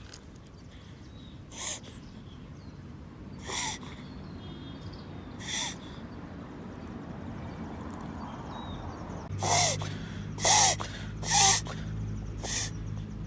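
Dog's reverse sneezing: short, sharp snorting inhalations, at first about two seconds apart, then louder and closer together from about nine seconds in, seven in all.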